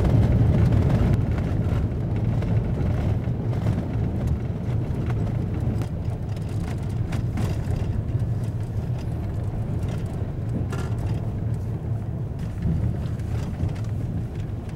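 Car driving on a gravel road, heard from inside the cabin: a steady low rumble of engine and tyres with many scattered clicks and knocks from the gravel.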